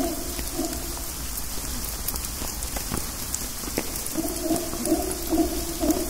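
Mantled howler monkey roaring in a run of low, pulsed grunts. It breaks off about a second in and starts again about four seconds in, over scattered raindrops dripping.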